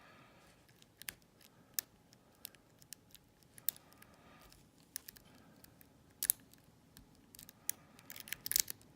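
Small sharp metallic clicks and scrapes of a short hook lock pick raking and lifting the pin tumblers of a Cisa padlock held under a tension wrench, spaced irregularly, with a quick run of clicks near the end.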